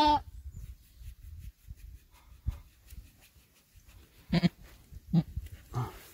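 Goat bleating: three short calls in the last two seconds, the first two the loudest.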